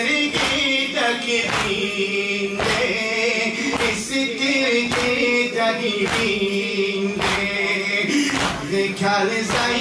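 A Muharram mourning lament (noha) sung without instruments, with hands striking chests in time roughly once a second (matam, chest-beating).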